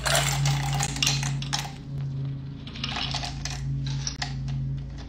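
Ice cubes clattering into a copper mug in a run of short, irregular clinks and rattles.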